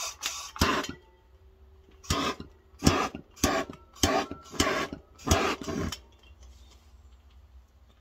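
Handheld gas torch fired at a kerosene heater's wick in a series of short hissing bursts, about eight in all, most of them coming at an even pace between about two and six seconds in. The torch is lighting the wick by hand because the heater's built-in igniter did not catch.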